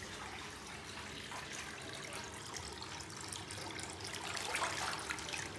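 Water trickling and lightly splashing in a small washing tub, with a few slightly louder splashes about four and a half seconds in.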